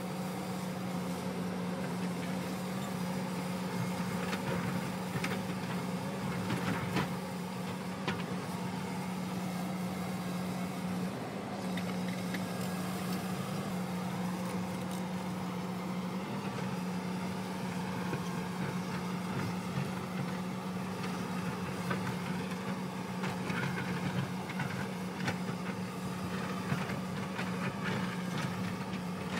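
Hyundai crawler excavator's diesel engine running steadily with a constant hum as it works its hydraulics, with occasional knocks and scrapes of the bucket against rock and soil, more of them near the end.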